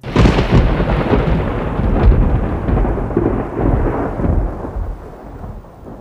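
A thunderclap breaks suddenly and rumbles away, fading over about five seconds.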